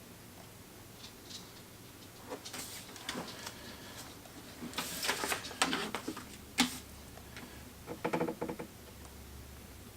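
Handling noises: scattered clicks and short bursts of rustling, busiest about halfway through, with a brief pitched sound near the end.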